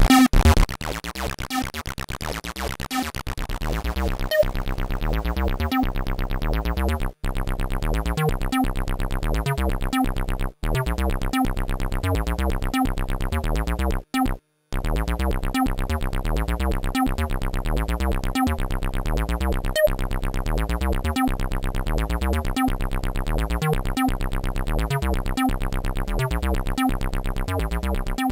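Dreadbox Typhon analog synthesizer playing a fast repeating sequenced pattern over a stepping bass line at a steady level. The sound cuts out briefly three times, the third time about halfway through.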